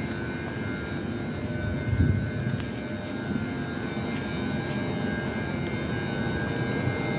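Steady mechanical hum of a VR passenger train's onboard equipment, with faint steady high whining tones over it. A brief low thump comes about two seconds in.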